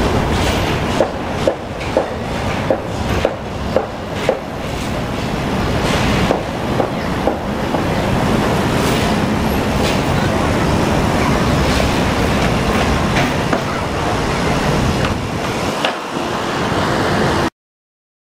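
City street traffic with a tram rolling through the intersection. Its wheels clack over rail joints about twice a second for the first few seconds. Steady traffic noise follows and then cuts off abruptly near the end.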